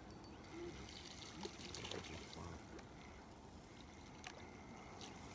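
Faint outdoor background: an even low hiss and rumble, with a few faint ticks.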